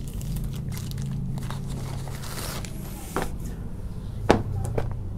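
Handling of a packaged cloth suit: rustling of the fabric and its plastic packet, with two sharp taps about three and four seconds in, the second the loudest.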